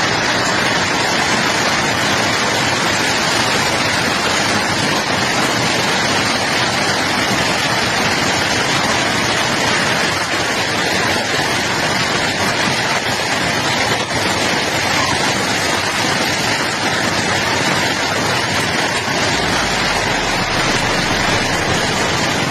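Heavy hailstorm: a loud, dense, steady rush of hail and torrential rain pouring down without letup.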